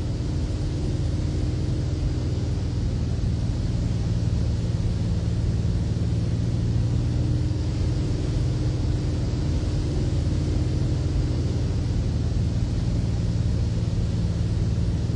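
Light amphibian aircraft's pylon-mounted engine and pusher propeller running at a steady, even drone as the plane speeds across the water.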